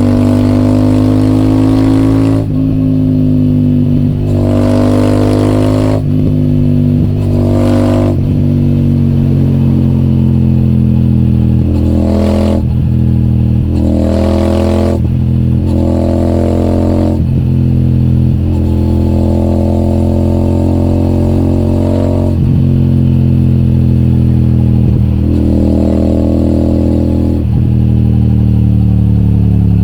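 Royal Enfield Super Meteor 650's parallel-twin engine running through an aftermarket AEW TE 202 exhaust while being ridden. The engine note climbs slowly and then drops again, over and over, with brief breaks between.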